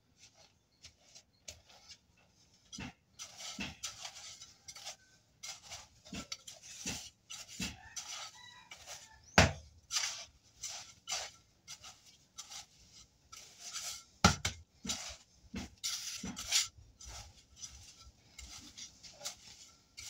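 Steel mason's trowel scraping and knocking on mortar over a concrete floor: a string of scrapes and sharp taps, the loudest knocks about nine and a half seconds in and again around fourteen seconds.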